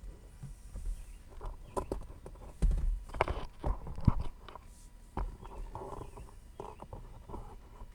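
Irregular clicks, knocks and rattles of plastic center-console trim being handled and fitted back into place, the loudest knocks a few seconds in.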